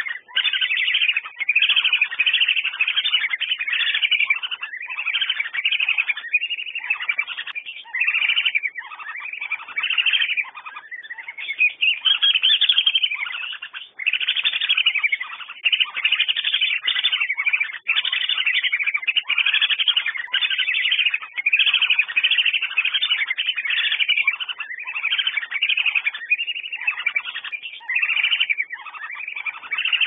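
Whistling ducks (Dendrocygna) calling: a continuous run of high whistled calls, one after another and often overlapping, with only brief breaks.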